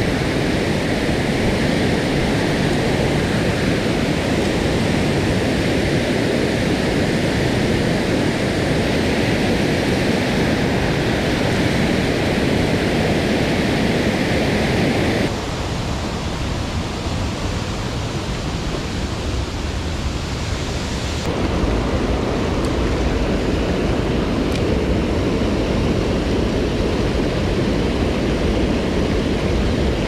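Water pouring over a stream weir: a loud, steady rush. It drops back for several seconds around the middle, then swells again with a deeper rumble.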